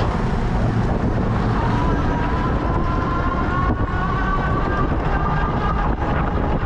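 Wind rushing over the microphone, with road and traffic noise, while riding an e-bike; a thin whine rises slowly in pitch from about two seconds in.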